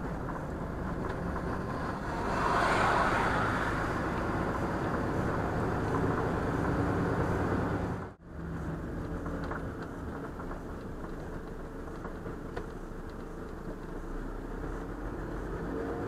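Engine and road noise inside a moving truck's cab, picked up by a dashcam. There is a swell of louder noise about two to four seconds in, and the sound drops out for an instant about halfway through where one clip cuts to the next.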